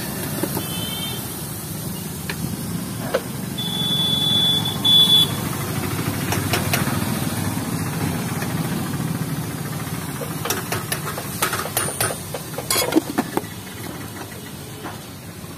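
Roadside traffic: motorcycle and vehicle engines running with a steady rumble. A brief high tone sounds about four seconds in, and a few sharp clatters come near the end.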